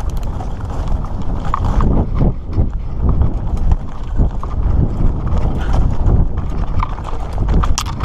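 Mountain bike rolling fast over a loose, rocky dirt trail: many sharp clicks and knocks of tyres striking stones and the bike rattling, over a steady low rumble.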